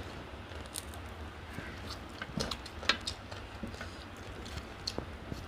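Eating sounds: scattered wet clicks and smacks of people chewing mutton biryani.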